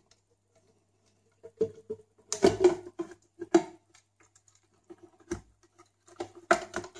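Small clicks, taps and scrapes of a sealed lead-acid battery and its wires being handled and pressed into a plastic flashlight housing, coming in scattered bunches after about a second and a half.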